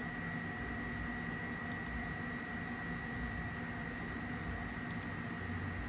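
Steady background hum with a constant high-pitched whine, and two pairs of faint short clicks about two seconds in and again about five seconds in.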